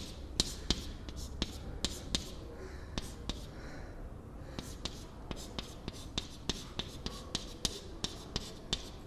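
Chalk tapping and scratching on a chalkboard in quick, short strokes, about three clicks a second, with a brief pause near the middle.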